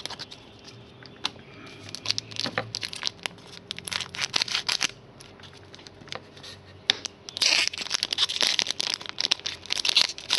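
Trading cards and their wrapping being handled: papery sliding and crinkling with scattered clicks, in two busier stretches about four and eight seconds in.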